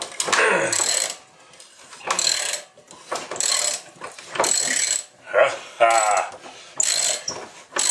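Hand socket ratchet clicking in short strokes, about one a second, as a nut is backed off on a small engine.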